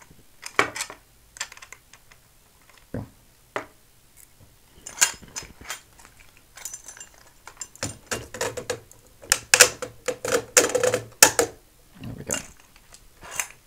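Irregular clicks and knocks of a metal DAB aerial and its mounting bracket being handled and fitted together, coming more often in the second half.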